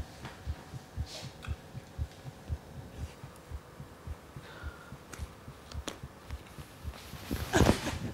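A heartbeat sound effect of low, evenly repeating thumps, roughly two a second, under a woman's crying breaths and sniffs. Near the end she lets out a loud sob, and then the sound cuts off suddenly.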